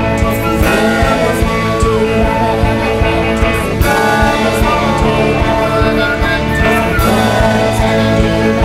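Live psychedelic rock music: a band playing with electric guitar over a steady drum beat.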